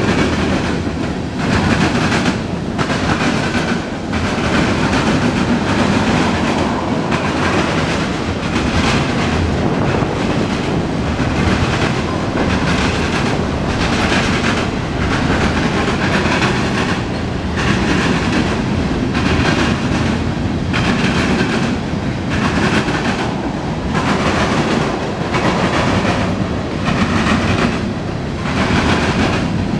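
Freight train's cars (covered hoppers, tank cars, boxcars) rolling past close by: a steady loud rumble of steel wheels on rail, with a recurring clickety-clack about once a second as the wheel sets cross rail joints.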